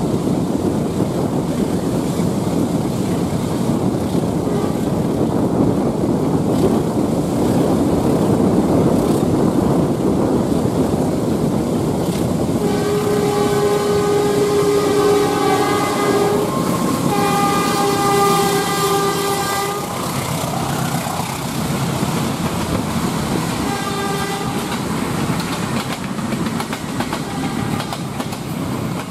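Air horn of a CC203 diesel locomotive sounding a chord of several notes: two long blasts of about three seconds each, a second apart, about halfway through, and a short third blast a few seconds later. Underneath, a steady rushing of wind and road noise mixed with the rumble of the train running alongside.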